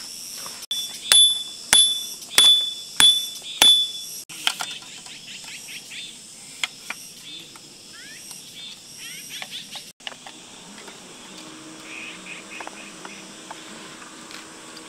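Five loud, sharp, high-pitched chirps about half a second apart in the first few seconds, then softer bird chirps over a steady high insect hum.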